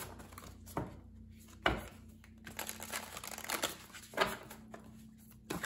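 Tarot and oracle cards being shuffled by hand: a handful of separate snaps and rustles of the card stock, the loudest about a second and a half and about four seconds in.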